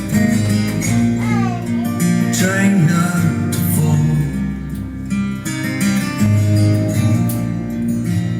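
A song with guitar and singing played back through a SAL 2610S for a sound test, picked up by a camera microphone.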